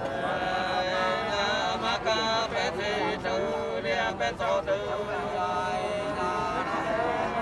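Unaccompanied Nùng sli folk singing: long held, wavering vocal lines sung without instruments.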